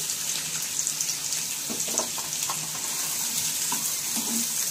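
Sliced onions sizzling in hot oil in a nonstick pan, a steady hiss. A wooden spatula stirring them knocks faintly a few times.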